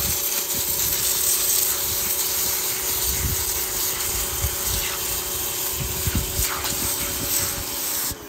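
1400 PSI pressure washer running, its pump giving a steady hum under the hiss of the water jet spraying onto a bird bath. It cuts off suddenly near the end.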